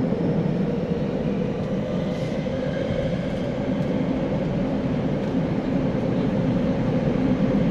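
Interior running noise of a Tokyo Metro 9000 series train: a steady rumble of wheels on rail and car motion, heard from inside the passenger car.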